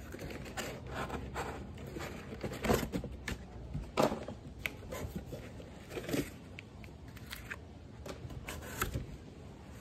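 A helmet in a cloth bag being handled inside a cardboard box: fabric rustling and cardboard scraping, broken by a handful of short, sharper scrapes and knocks.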